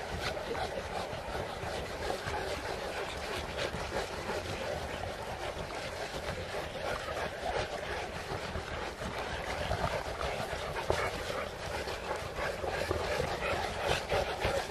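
A large pack of St. Bernard dogs out walking: dogs panting over a steady noisy wash sprinkled with small clicks and ticks.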